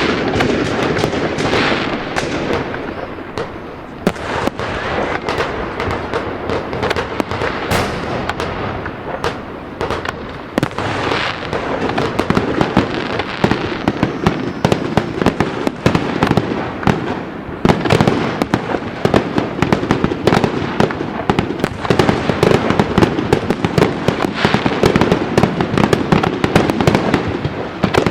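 Fireworks going off continuously: a dense barrage of rapid cracks and bangs over a steady rumbling crackle, growing busier about halfway through.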